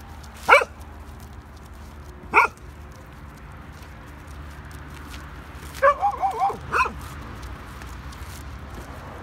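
Young Kangal dogs barking: a single bark about half a second in, another near two and a half seconds, then a quick run of about five short yipping barks around six seconds, followed by one more bark.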